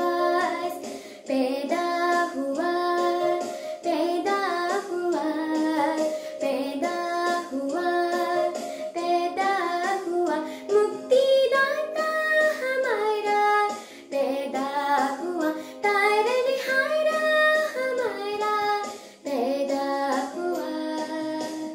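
A girl singing a Hindi Christmas carol, a slow melody of held notes with gliding pitch.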